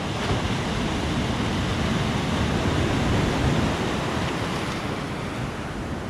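Winter Black Sea surf breaking and washing along a concrete groyne: a steady rush of churning water and foam that swells a little midway.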